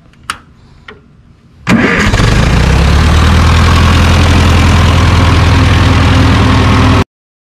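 Ferguson tractor's four-cylinder gasoline engine started on the key: after a few light clicks it fires almost at once, a little under two seconds in, and runs steadily at idle before cutting off suddenly near the end.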